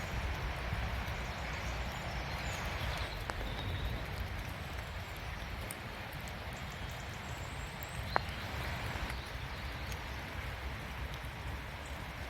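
Steady rain in woodland, with scattered drops ticking and one sharper tick about eight seconds in, over a low rumble. A few faint, short bird calls.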